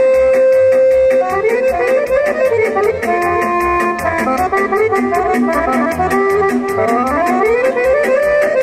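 Romanian lăutari folk dance music for a hora, played without singing. A lead instrument holds one long note for about a second, then plays quick melodic runs over a fast, steady beat.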